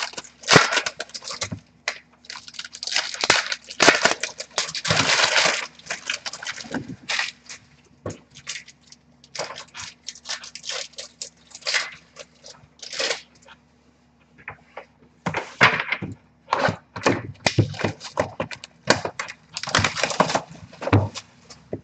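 Packaging of trading-card boxes and packs being handled and torn open: irregular bursts of rustling, crinkling and tearing.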